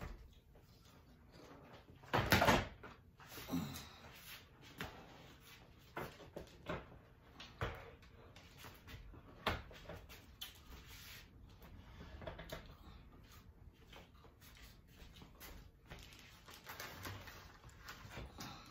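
Handling noises: scattered knocks and clicks as a motorized projector screen case is lifted and set across a chair back, with one louder knock about two seconds in.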